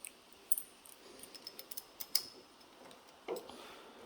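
Light metallic clicks and small rattles from a replacement door latch and lock on a 1954 DeSoto, worked by hand to test whether it locks. The clicks come irregularly, a few at a time, the sharpest about two seconds in.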